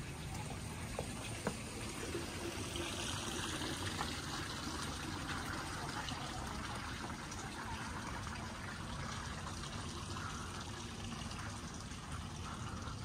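Steady trickling of running water, with a light click about a second and a half in.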